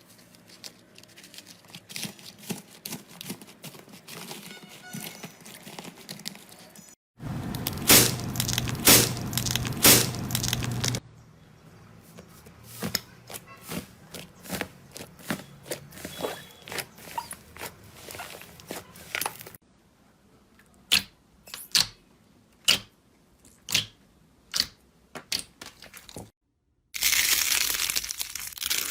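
Slime being squeezed, stretched and poked by hand, giving sticky crackling, popping and crinkling sounds. It comes as a run of short clips that cut abruptly, with a louder, denser crackling stretch about a quarter of the way in and again near the end.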